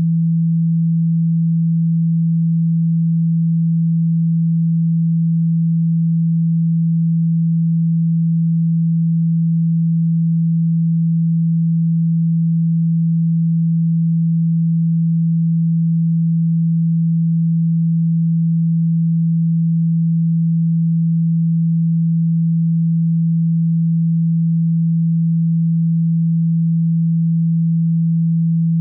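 A speaker-cleaning tone: one steady, low-pitched pure tone held without change, played to shake water and dust out of a phone speaker.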